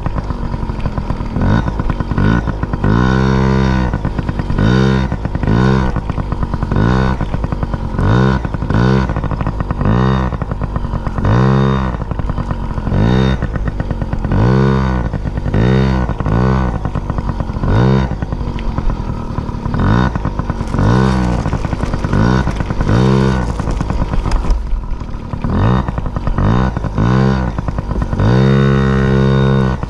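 An engine revving up and falling back over and over, roughly once every one to two seconds, with a steady high tone underneath.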